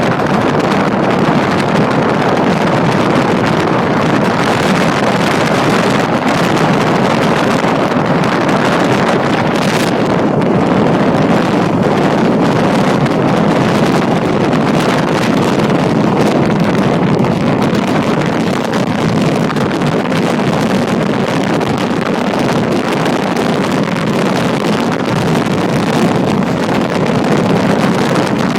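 Steady rush of wind on the microphone over the running noise of a moving passenger train.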